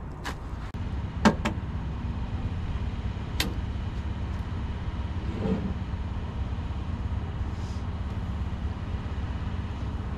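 A few sharp knocks and clicks from a long-handled aluminium deck-brush pole being handled, the loudest about a second in, over a steady low rumble.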